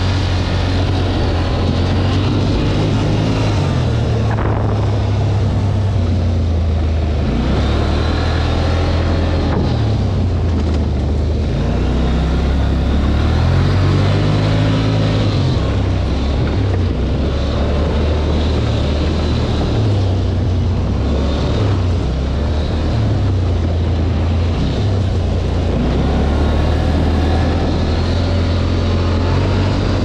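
Polaris ATV engine running while riding off-road, its pitch rising and falling repeatedly as the throttle opens and closes.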